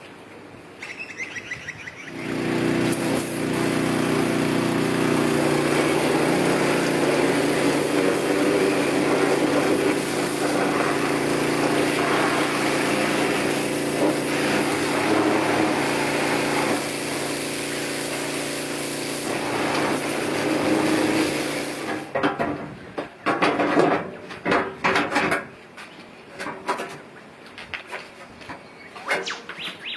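Mini excavator's small diesel engine catching about two seconds in, running steadily at an even speed for about twenty seconds, then stopping abruptly. A scatter of irregular clicks and knocks follows.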